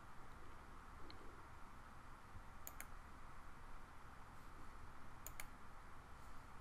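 Faint room hiss with two light, sharp clicks about two and a half seconds apart.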